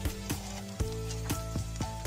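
Background music with a steady beat and held notes. Under it, faint sizzling of beef chunks and onions frying in oil in a karahi.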